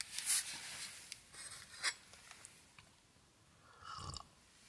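Quiet eating of a custard cream puff: soft rustles of the plastic snack wrapper and a few small ticks in the first two seconds, then chewing, with a short hum of satisfaction near the end.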